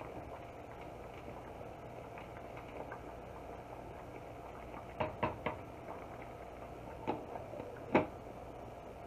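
Basmati rice boiling in a stainless steel saucepan over a gas burner, a steady low bubbling hiss. A wooden spoon knocks against the pot three times in quick succession about five seconds in, and near the end a glass lid is set down on the pot with a loud ringing clank.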